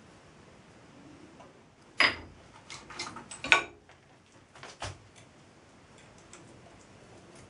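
Metal clinks and knocks as an Allen key and steel machine parts are handled: a sharp clack about two seconds in, a quick run of knocks soon after, one more near five seconds, then faint light ticks.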